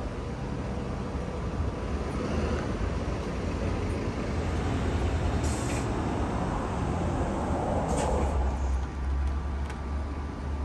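Road traffic: vehicle engine and tyre noise rumbling past, swelling through the middle and easing off near the end. Two brief sharp crackles stand out, one about halfway through and one a little later.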